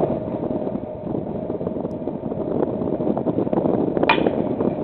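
Steady wind noise on the microphone, with one sharp, short ringing click about four seconds in.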